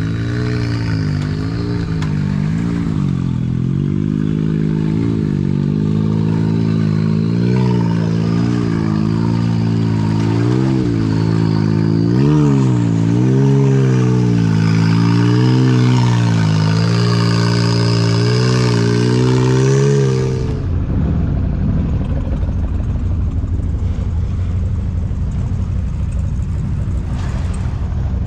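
Can-Am Maverick X3's three-cylinder Rotax engine revving up and down repeatedly as the side-by-side crawls over rocks. About twenty seconds in, the sound cuts abruptly to a steady low rumble as the machine wades through muddy water.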